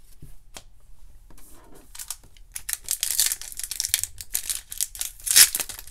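Foil wrapper of a 2018-19 Panini Contenders Basketball card pack being crinkled and torn open by hand. The foil tears raggedly rather than cleanly. Dense crackling starts about two and a half seconds in and is loudest near the end.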